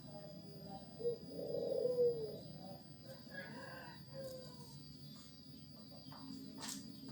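Birds calling in the background, like domestic fowl: a drawn-out call from about one to two and a half seconds in that falls at its end, then a few shorter, fainter calls.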